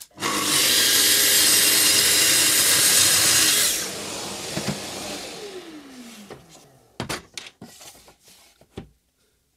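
Festool plunge-cut track saw running and cutting across a small wooden offcut along its guide rail for about three and a half seconds, then the trigger released and the blade winding down with a falling whine. A few sharp knocks follow near the end as the saw is handled off the rail.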